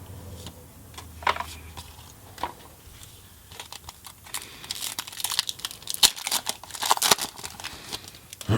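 A Magic: The Gathering booster pack's plastic-foil wrapper being torn open and crinkled: irregular crackling, busier in the second half.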